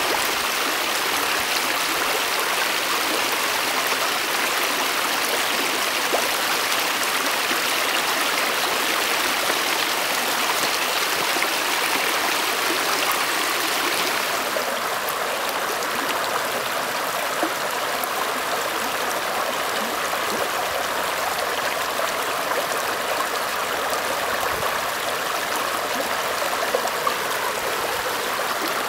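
Shallow creek water flowing and splashing over granite rocks and gravel, a steady rush with a slight change in tone about halfway through.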